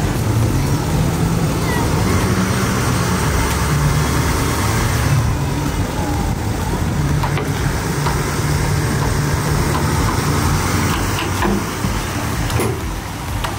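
Cummins turbo-diesel V8 of a Nissan Titan XD pickup running steadily under load as it pulls a cabin cruiser on its trailer up a boat ramp.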